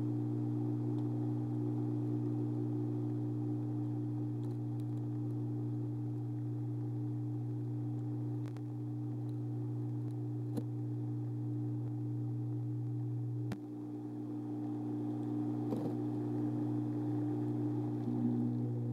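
Two small submerged water pumps running with a steady electric hum, pushing a stream of churning water through a narrow tank. A few light clicks come through, and the hum dips slightly about two-thirds of the way in.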